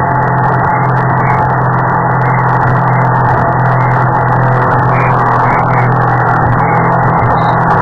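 Speedboat engine running at a steady speed, a constant drone that holds its pitch, with wind and water rushing past the hull.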